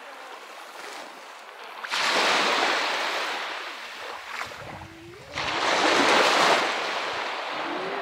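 Small Baltic Sea waves breaking on a pebble beach, twice: a sudden rush of surf about two seconds in that fades away, then a second, louder rush a little after five seconds that washes up over the stones and dies down.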